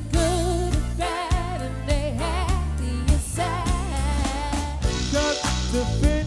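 Live cover band playing: a woman sings lead with a wavering vibrato over drums, electric guitar and keyboards. The sound is a clean mix taken from the band's mixing desk rather than picked up in the room.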